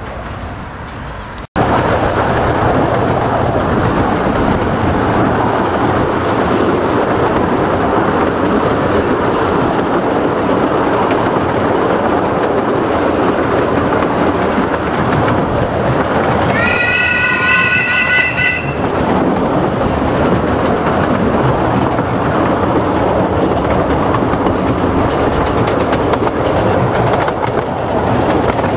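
Steady running noise of a 15-inch-gauge miniature railway train heard from aboard a moving carriage, starting abruptly about a second and a half in. About two-thirds of the way through, the locomotive sounds a pitched warning blast lasting about two seconds.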